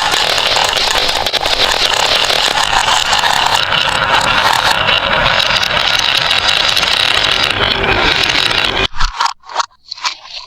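Many marbles rolling and clattering together down a toy marble run, a dense continuous rattle of small clicks. It cuts off abruptly near the end, leaving a few separate clicks and knocks.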